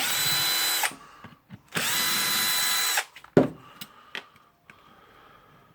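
Power drill-driver running in two short bursts of about a second each with a steady whine, backing out the screws of a gear housing. A sharp clack and a few light clicks follow as parts are handled.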